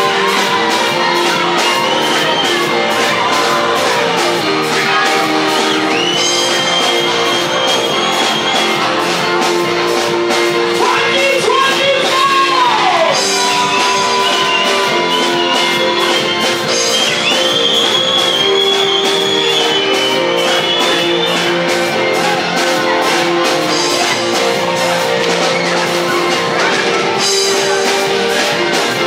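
Music: singing voices over instruments with a steady beat.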